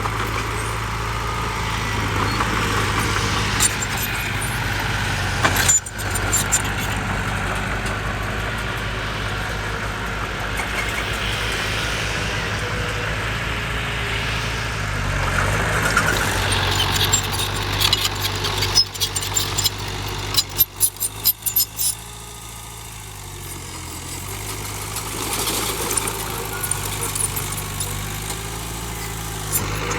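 Heavy diesel engine of an earthmoving machine running steadily, with a run of sharp clattering knocks a little past the middle.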